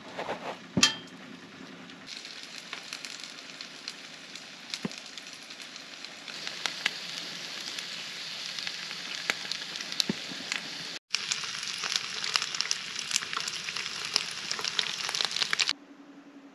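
Sausages and diced potatoes frying in a pan: a steady sizzle with many small spitting crackles, cut together from a few shots, stopping abruptly near the end. A sharp knock sounds about a second in.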